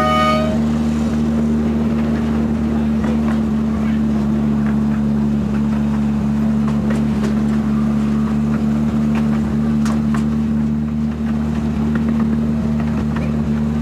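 Miniature railway locomotive's engine running with a steady, even drone as it hauls the train, heard from a passenger car, with occasional faint clicks from the wheels on the track. A held horn note cuts off about half a second in.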